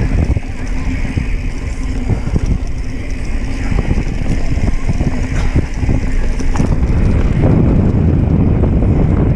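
Mountain bike riding fast down a dry dirt trail: wind buffeting the microphone and tyres rumbling over the dirt, with frequent sharp rattles and knocks as the bike hits bumps, a little louder near the end.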